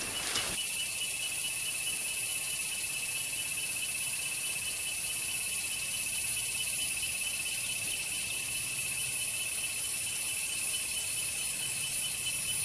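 Rainforest insects calling in a steady, unbroken high-pitched drone, with a shrill tone and a higher hiss above it.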